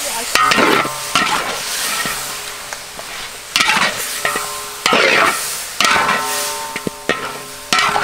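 Metal spatula scraping and turning pork ribs in a hot wok, several irregular strokes over a steady sizzle of frying meat.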